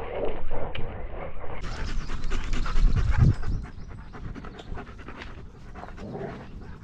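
Dog panting rapidly close to the microphone, with low rumbling from movement against the harness-mounted camera; louder for the first three seconds or so, then quieter.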